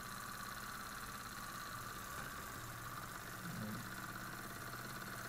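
Small German model steam engine, a single oscillating cylinder on a vertical boiler, thought to be a Carette from around 1911, running under steam. It is very, very quiet: a faint steady running sound.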